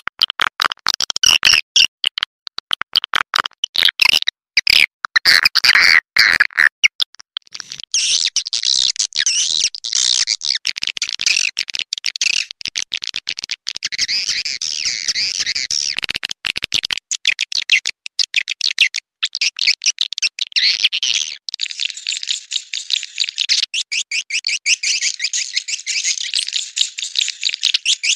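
Swiftlet lure call: a recorded loop of edible-nest swiftlet chirps and clicking trills, used to draw swiftlets to a swiftlet house. It goes from rapid clicking pulses to a dense, continuous high twittering about eight seconds in, and shifts to another chirping pattern about twenty-one seconds in.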